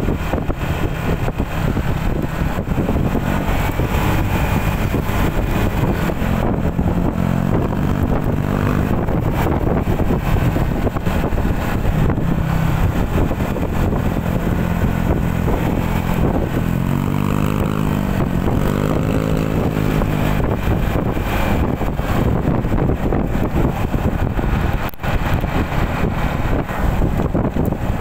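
Motorcycle engine running while cruising at about 40 km/h, with wind rushing over the microphone. The engine note swells and falls twice a little past the middle.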